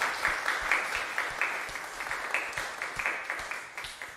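Audience applauding, with many separate hand claps, dying away near the end.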